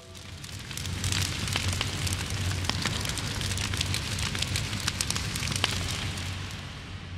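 A fire burning, crackling with sharp snaps over a low rumble, fading near the end.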